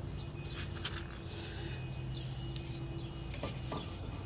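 Light metallic clicks and taps from brake parts being handled and fitted at a car's rear brake caliper, over a steady low hum.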